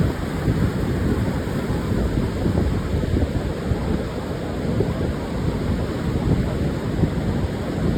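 Pacific surf breaking and washing on a sandy beach, a continuous rumbling wash, with wind buffeting the microphone.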